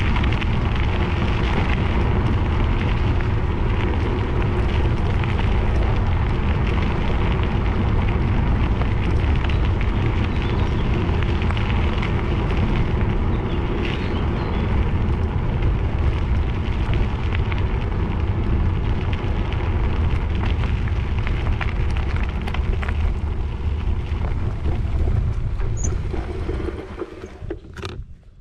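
Heavy wind rumble on the microphone of a camera moving along a gravel path, with a fine crackle of gravel crunching underneath. The noise falls away near the end as the movement stops.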